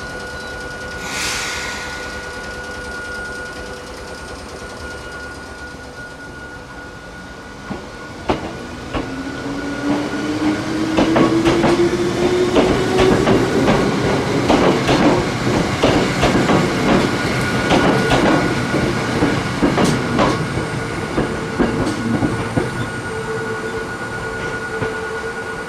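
Hakone Tozan Railway electric train getting under way and running past. The motor hum rises steadily in pitch from about 8 s in, and the wheels clack over rail joints with some squealing once it is moving.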